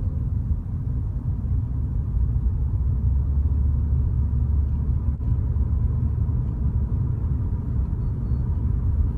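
Steady low rumble of a car in motion, heard from inside the cabin. It grows a little louder about two seconds in.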